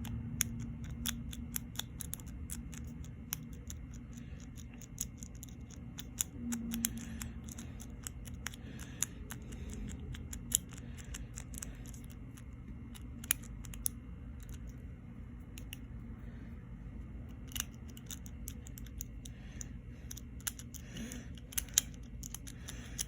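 Quint rake clicking against the pin tumblers of an Abus 72/40 aluminium padlock as it is raked: many light, irregular metallic clicks over a low steady hum.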